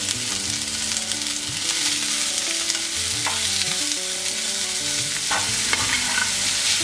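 Sliced onions sizzling in hot mustard oil in a non-stick frying pan while a plastic spatula stirs them, with a few scrapes and taps of the spatula against the pan.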